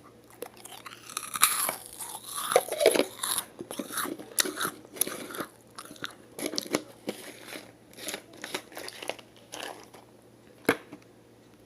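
Crisp meringue cookie bitten and chewed close to the microphone: dense crunching for several seconds, thinning into slower chewing. One sharp click comes near the end.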